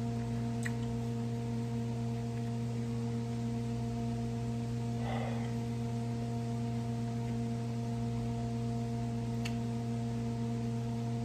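Steady electrical hum: several low tones held unchanged throughout. A faint brief sound comes about five seconds in, and there are two faint clicks.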